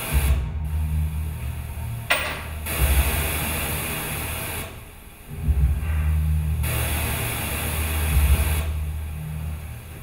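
Stage sound effect played over the theatre's speakers: a loud low rumbling drone that swells and drops away in long stretches, alternating with hissing noise, with a short falling swish about two seconds in.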